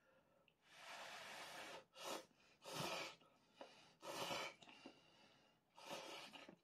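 Ramen noodles slurped off chopsticks in several short, airy sucking bursts, the first lasting about a second.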